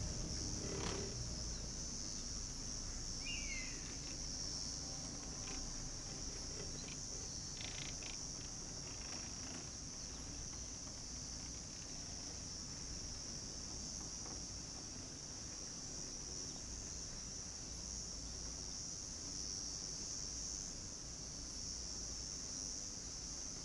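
Steady high-pitched chorus of insects chirring on the summer slopes, with a low rumble underneath.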